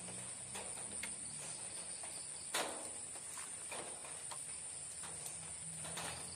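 A steady, high-pitched chorus of crickets at night, with scattered ticks and rustles over it and one sharper knock about two and a half seconds in.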